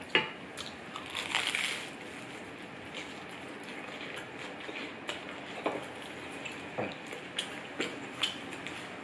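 Crunching bites into crisp toast topped with stir-fried cabbage, strongest about a second in, followed by scattered light clicks of cutlery and dishes.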